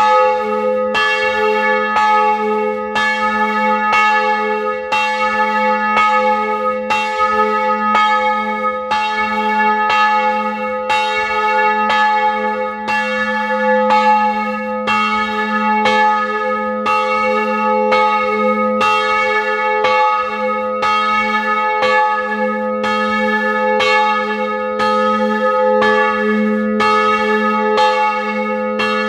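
Single bronze church bell with strike note A-flat (as'), cast by Rudolf Perner of Passau in 2006, swinging and ringing, its clapper striking about once a second over a steady low hum. Heard close up in the bell chamber.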